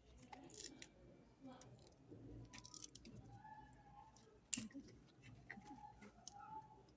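Near silence broken by scattered faint snips and clicks of kitchen scissors cutting over a steel bowl, the loudest about four and a half seconds in.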